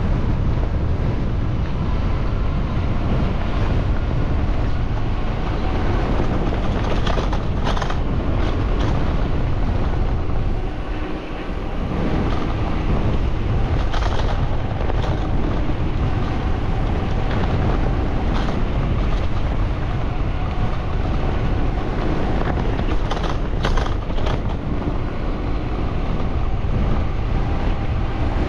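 Wind buffeting the microphone while riding, over a steady low rumble of traffic. The wind drops briefly about eleven seconds in, and a few short knocks sound along the way.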